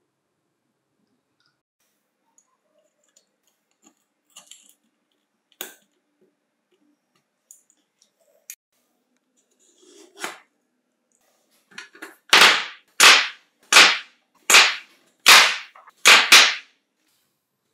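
Samsung 18650 lithium-ion cells slid one after another into the tubes of a plastic battery-pack cell holder: about seven short, loud scraping strokes near the end, one every 0.7 s or so. Before them come a few faint taps and clicks of the cells and holder being handled.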